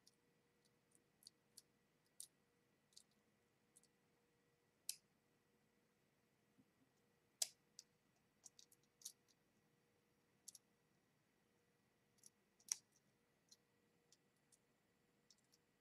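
Faint, scattered sharp clicks of small metal padlock parts handled and fitted together while a lock cylinder is reassembled, with two louder clicks about seven and a half and twelve and a half seconds in.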